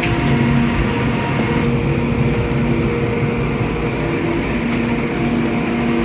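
Newark AirTrain monorail car running, heard from inside the car: a steady rumble with a hum that comes and goes.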